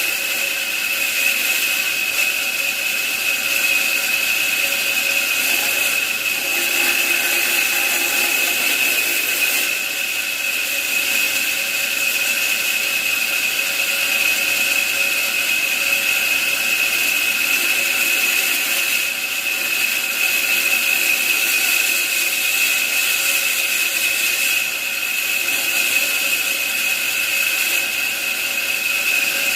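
A woodworking power tool running steadily, with a constant high-pitched whine over a hiss.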